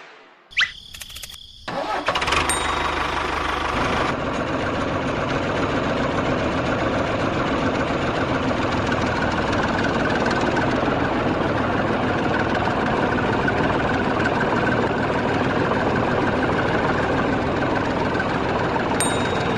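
A few clicks, then an engine starts about two seconds in and runs steadily at idle.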